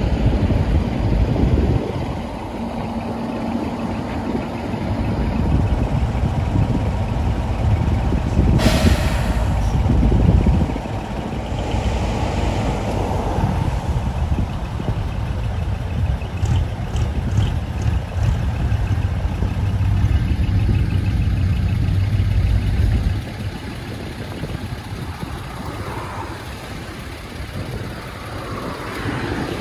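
Diesel trucks driving slowly past, engines running. A short, sharp hiss comes about nine seconds in, and the engine rumble drops away about 23 seconds in.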